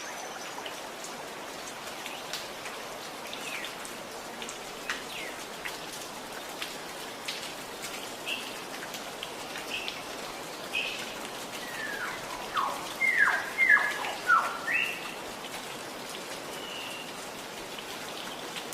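Gurgling, trickling water with a steady hiss and many small drips, while forest songbirds chirp now and then. About twelve seconds in, a bird gives a quick run of four or five loud descending whistled notes.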